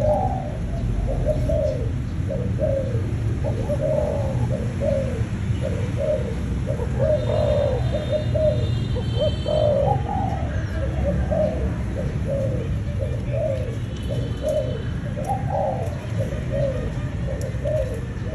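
Spotted dove cooing over and over, short low coos following one another about once or twice a second with hardly a break. Faint higher chirping joins in twice, around the middle and again later.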